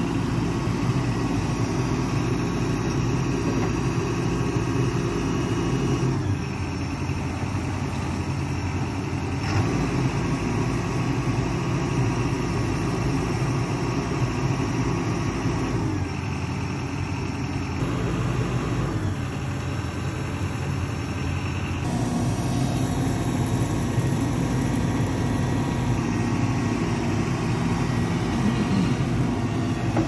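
Diesel engine of a Cat 420F2 backhoe loader running steadily while the backhoe digs, its tone and load shifting every few seconds as the boom and bucket are worked.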